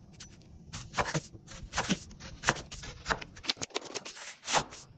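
Kitchen knife slicing a red onion into thin strips on a wooden cutting board: a quick, uneven run of short chops as the blade goes through the onion and hits the board, about three or four a second.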